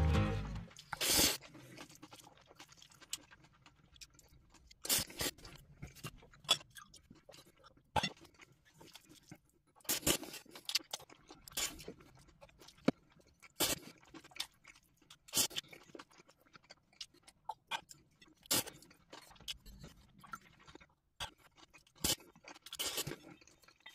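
Close-up eating sounds of pad thai, stir-fried rice noodles: irregular chewing with scattered short clicks and smacks.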